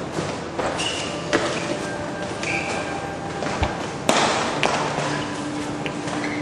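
Gloved sparring: irregular thuds and slaps of strikes and blocks landing, with shuffling footwork. The sharpest hit comes about four seconds in.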